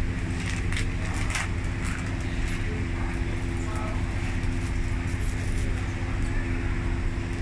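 Steady low rumble with a constant mechanical hum, and a few short crinkles of plastic bags being handled about a second in.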